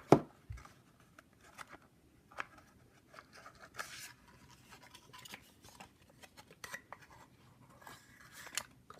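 Scattered small clicks, taps and rustles of headphone cables being handled and unpacked from their packaging, with a short knock right at the start.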